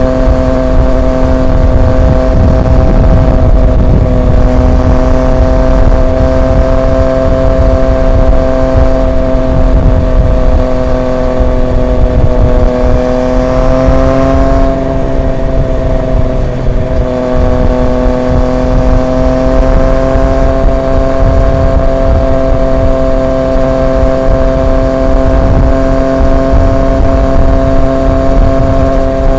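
A Triumph Street Triple 765 RX's three-cylinder engine runs through an SC Project S1 exhaust at a steady cruising note. The pitch rises slightly about halfway through, eases off briefly, then holds steady again, under a low rush of wind and road noise.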